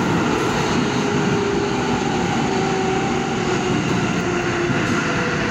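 R188 subway car running at speed through a tunnel, heard from inside the car: a steady, loud rumble of wheels on rail and propulsion noise, with a faint motor tone that steps lower in pitch.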